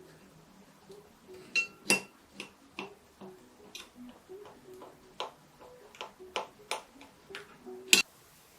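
A series of light, irregular clicks and taps, the sharpest about two seconds in and near the end, over soft background music.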